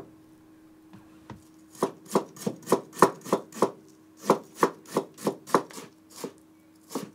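Chef's knife mincing fresh ginger on a cutting board: a run of quick chops, about three a second, starting about two seconds in, with a couple of short pauses.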